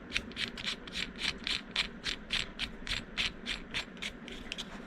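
Locking ring being screwed onto a push-button operator: a rapid, even series of short scraping strokes, about four to five a second, that stops near the end.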